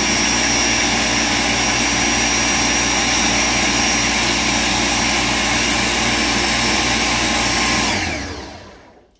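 Ninja Professional 1000-watt blender running steadily at full speed, grinding roasted peanuts into peanut butter. It is switched off about eight seconds in, and its motor winds down over about a second.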